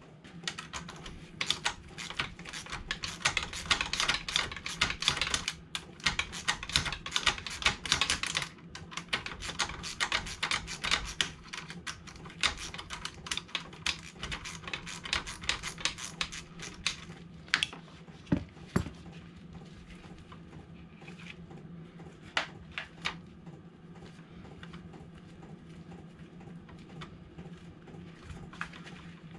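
Ratchet spanner clicking rapidly in long runs as the 10 mm bolt on a motorcycle's gear selector linkage is undone, breaking off briefly once; after about 17 seconds the runs stop, leaving a few separate metallic clicks and knocks. A steady low hum sits underneath.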